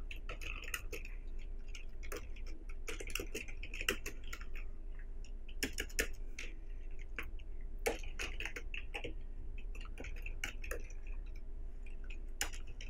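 Typing on a computer keyboard: irregular keystroke clicks, with a faint steady hum underneath.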